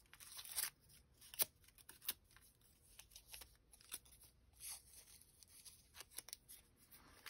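Faint, scattered rustles and crackles of small folded paper slips being picked up, unfolded and laid down by hand.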